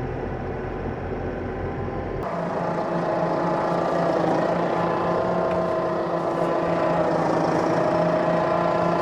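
Vehicle engine running steadily. About two seconds in, the sound cuts abruptly to a different, slightly louder engine with a steady pitched hum.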